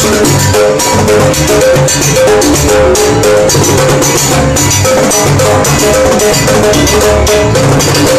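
Live Latin dance band playing loudly: timbales and congas drive a fast, steady rhythm over repeating melodic lines from pitched instruments.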